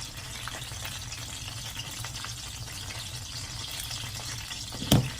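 Frozen pork pot stickers frying in oil in a pan on low heat, a steady sizzle, with one sharp knock near the end.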